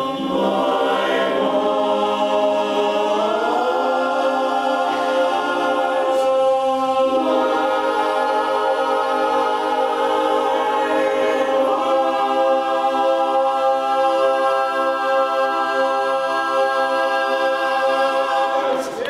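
Men's barbershop chorus singing a cappella in close harmony, sustained chords with the voices sliding up together about three seconds in, then one long held final chord over the last several seconds.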